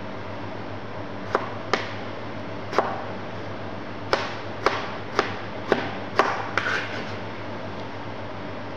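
Kitchen knife chopping vegetables on a plastic cutting board: about nine sharp, unevenly spaced chops between one and seven seconds in, over a steady low hum.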